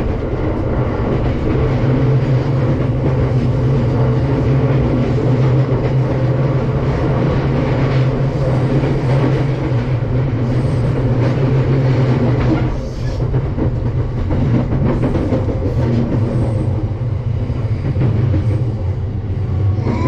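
JR East Tokaido Line train running at speed, heard from inside the carriage: a steady low rumble of wheels on rail, with a short dip in the noise about thirteen seconds in.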